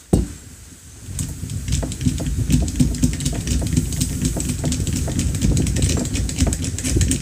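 .22 LR rounds being stripped out of a CMMG polymer conversion magazine with a handheld magazine unloader tool: a knock as the magazine is seated, then from about a second in a fast run of sharp clicks and rattling as the rounds are pushed out and drop onto the towel.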